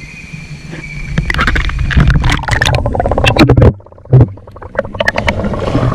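Water splashing and sloshing right against a camera held at the surface of a hot spring pool, with many sharp splash clicks. About three and a half seconds in, the sound suddenly goes dull as the camera is dunked under water, leaving muffled underwater thumps and bubbling.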